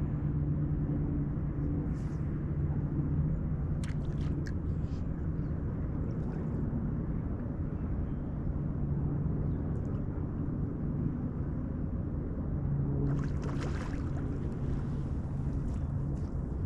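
A boat motor running steadily, a low hum that drops out briefly twice, over low wind rumble on the microphone. A few light knocks and a short hiss come near the end.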